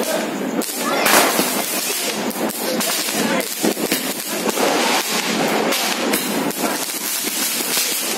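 A sky shot aerial firework cake firing, with a dense, continuous run of pops and crackles as shot after shot goes up.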